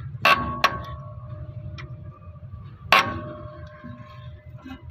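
Steel spanner on a drum brake's ratchet adjuster nut clinking against metal: two quick clinks, then a third about three seconds in, each leaving a ringing tone that fades. The adjuster is being slackened to free a feeler-gauge blade between the brake lining and the drum.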